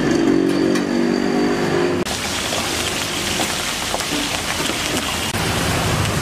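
Green chilies deep-frying in hot oil in an iron kadai: a steady, dense sizzle that starts abruptly about two seconds in. Before it comes a steady low hum.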